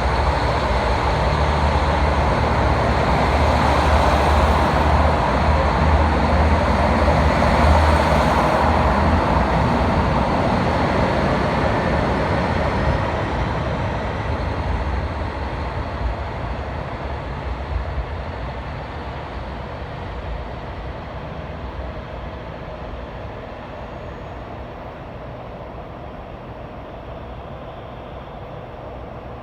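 KiHa 40 series diesel railcar pulling out, its diesel engine running under power with a deep rumble. The sound is loudest for the first several seconds, then fades steadily as the train draws away.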